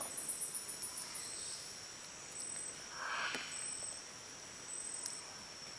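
Tropical forest insects buzzing steadily at a high pitch, with a short high chirp repeating about once a second and a fast, very high ticking during the first second. A brief soft rustle comes about three seconds in.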